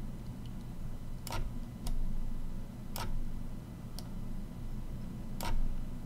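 About five single, sharp clicks from a computer mouse and keyboard, spaced a second or so apart, over a steady low hum.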